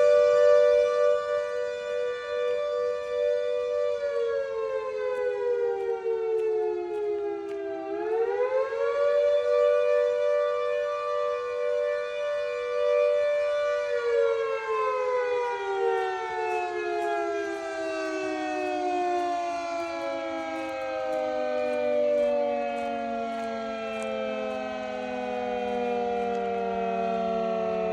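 Fire station siren sounding one steady pitched wail. About a third of the way in it dips in pitch and climbs back, then holds. From about halfway on it slowly falls in pitch as it winds down.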